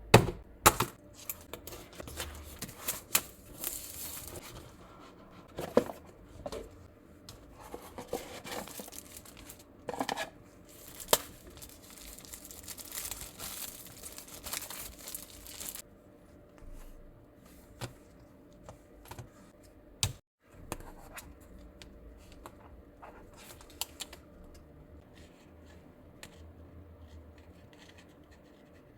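Packaging being opened and handled by hand: tearing and crinkling of wrapping with scratches and sharp clicks, busy for about the first half, then sparser clicks and rubbing.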